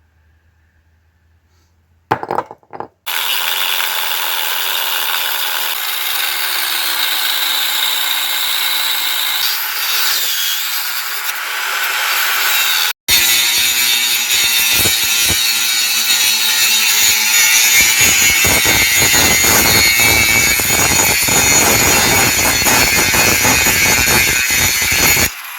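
Power tool cutting the steel of a Ford Super Duty Dana 60 front axle housing, starting about two seconds in. It stops briefly about halfway through, then runs on with a rougher, chattering edge until just before the end.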